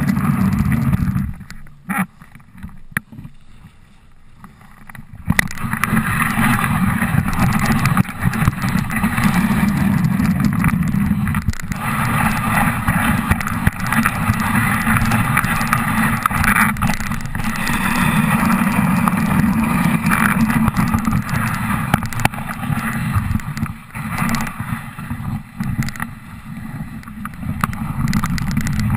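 Dog sled running over snow: a steady rumble of wind buffeting the sled-mounted microphone, with the runners hissing and scraping on the snow. It falls to a much quieter stretch from about two to five seconds in, then returns.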